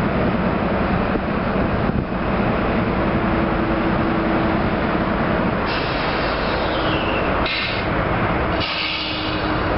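Norfolk Southern GE diesel locomotives, an ES40DC and a C40-9W, running with a loud, steady rumble. A few brief high-pitched sounds come in the second half, one falling in pitch.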